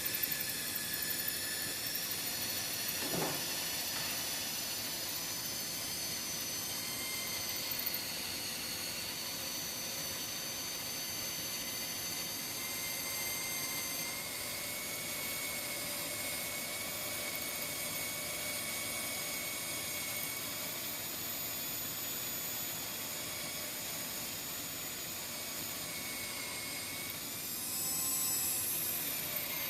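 Electric drill running steadily as it bores out a bolt broken off flush in an engine block: a steady motor whine over a hiss, growing briefly louder near the end.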